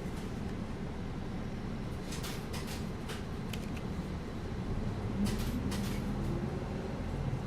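Steady low engine and road rumble inside a moving bus, with a few sharp rattles and clicks about two seconds in and again a little past halfway. After that the engine note rises slightly as the bus picks up speed.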